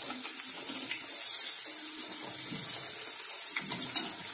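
Batter-coated bread pakoras deep-frying in hot oil in a kadhai: a steady sizzle with scattered crackles, swelling for a moment about a second in.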